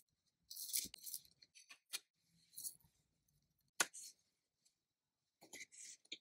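Quiet, irregular small clicks and short rustles from handling tiny cooking tools and ingredients at a miniature kitchen, with one sharper click a little before the four-second mark.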